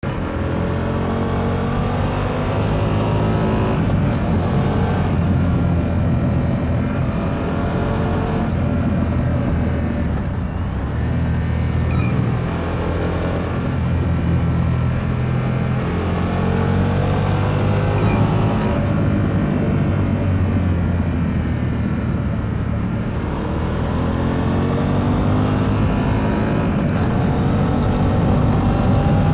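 Harley-Davidson Pan America 1250's liquid-cooled V-twin engine on its stock exhaust, heard from the saddle while riding hard. The engine pitch climbs and drops again and again as the throttle is opened and closed.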